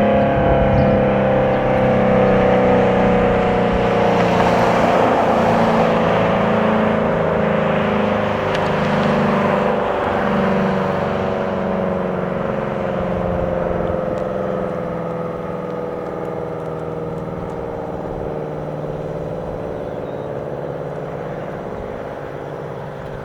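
Federal Signal SD-10 tornado siren winding down after a full-alert steady-tone test. Its tone slowly falls in pitch and fades.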